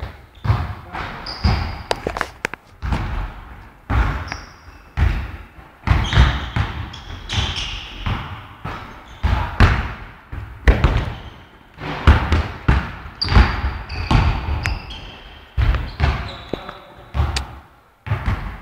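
Basketball being dribbled on a court floor, bouncing over and over at about two bounces a second.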